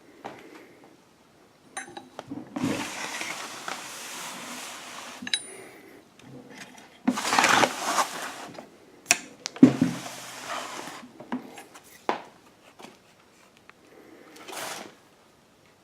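Handling noise as a heavy Singer 211G156 walking-foot sewing machine is turned around: several stretches of scraping with sharp knocks and metal clinks between them.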